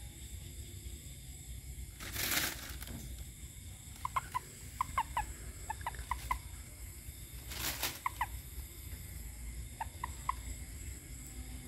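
Frogs calling: clusters of short, sharp chirps in quick runs, and twice a rasping croak about half a second long, the first about two seconds in and the second near eight seconds.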